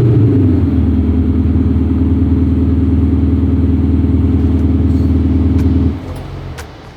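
Audi SQ5 TDI's 3.0-litre V6 diesel engine dropping from a rev to a steady idle. It cuts off about six seconds in, followed by a few faint clicks.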